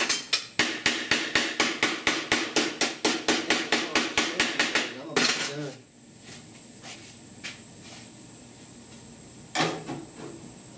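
Planishing hammer pounding a steel panel in a fast, even run of strikes, about five a second, for roughly five seconds. It then stops with a short metallic clatter, and a single knock comes near the end.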